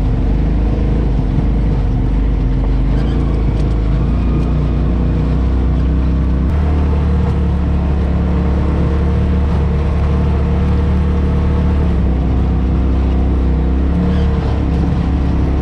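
Polaris RZR side-by-side's engine running steadily while driving, its note changing about six and a half seconds in.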